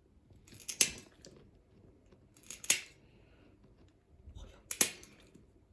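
Three sharp clicks, about two seconds apart: nail clippers snipping through a large dog's toenails.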